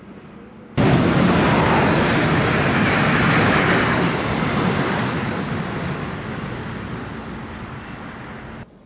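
Bombardier Talent 2 electric multiple unit running past close by: a loud, even rush of wheel and air noise that starts suddenly about a second in, holds, then slowly fades as the train moves away, cutting off near the end.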